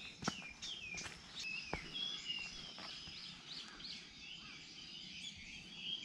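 Wild birds calling in woodland, many short chirps that slide down in pitch, over a thin steady high tone; a few sharp clicks in the first two seconds.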